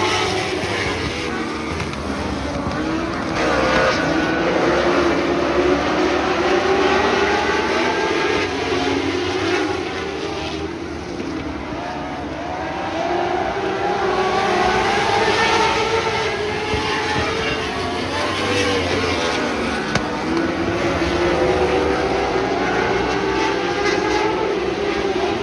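Engines of several winged lightning sprint cars racing on a dirt oval, their pitch rising and falling as they rev and pass, the sound swelling and fading every few seconds.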